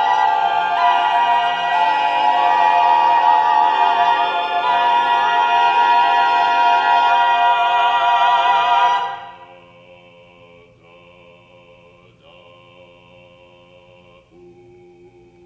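Mixed a cappella choir of about twenty voices singing a dense, sustained chord of many held pitches with vibrato. About nine seconds in, the full sound drops away suddenly, leaving a soft, high held tone over a few quieter low notes.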